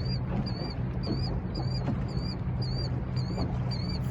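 A boat motor runs with a steady low hum. Over it comes a regular, squeaky high-pitched chirp, about three a second.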